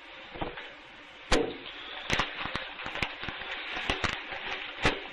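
A series of about seven sharp knocks and clicks at uneven intervals over a faint hiss, the first, about a second in, the loudest.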